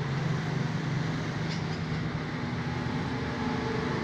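Steady mechanical background rumble with a faint low hum that shifts in pitch, like a running engine or motor. A faint light click about one and a half seconds in.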